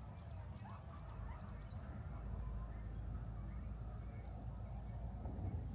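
Outdoor ambience: a low rumble that grows heavier about two seconds in, with faint chirps above it.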